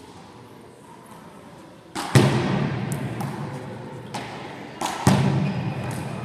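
Handball rally: two loud smacks of the ball about three seconds apart, each just after a softer tap, each followed by a long booming echo in the gym hall, with a few fainter taps of the ball between.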